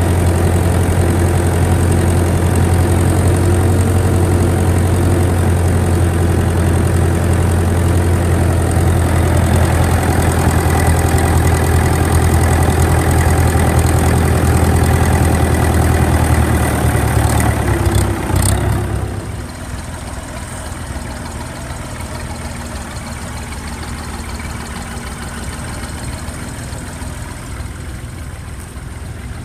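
Massey Ferguson 35X tractor's three-cylinder diesel engine running steadily under load while pulling a plough, heard up close from on the tractor. About two-thirds of the way through there are a few knocks, and the engine then carries on fainter and further off.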